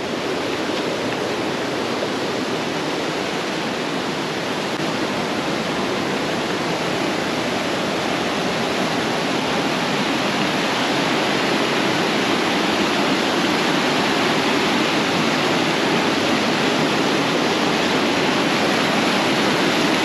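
Mountain stream rushing and cascading over boulders, a steady water noise that grows gradually louder as it comes closer.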